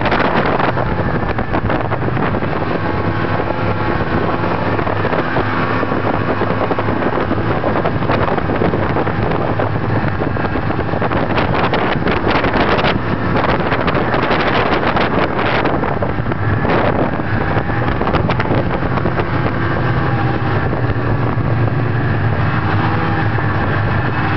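Snowmobile engine running steadily under way, its pitch rising and falling a little with the throttle, with wind noise on the microphone.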